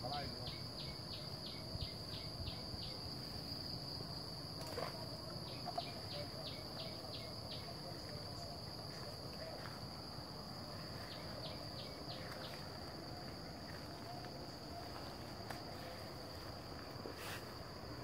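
Insects droning on one steady high note, with three runs of rapid chirping at about four chirps a second.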